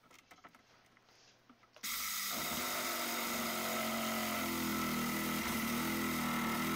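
Milwaukee 12-volt compact reciprocating saw, fitted with a wood-cutting blade, switches on suddenly about two seconds in and then runs steadily at a constant speed.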